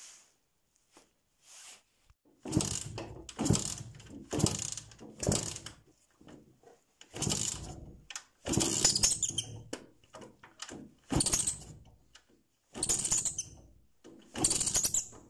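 Jawa ČZ 150/352 two-stroke single engine being turned over in short strokes, about ten of them. Four come about a second apart, then the rest are spaced more unevenly. The engine does not catch and run.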